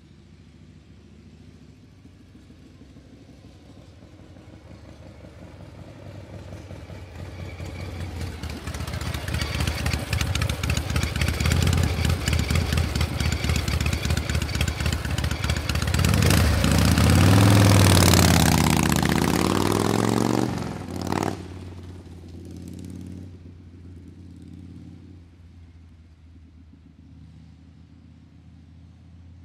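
A motor vehicle's engine comes closer with a fast, even running pulse, grows loud, and bends in pitch at its peak. It then drops off sharply and fades away to a low rumble.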